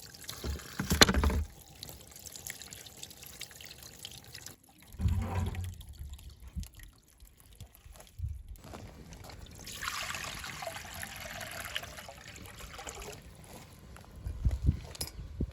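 Water pouring and trickling, with a few heavier splashes or bumps about a second in, around five seconds in and near the end, and a steady pour for a few seconds past the middle.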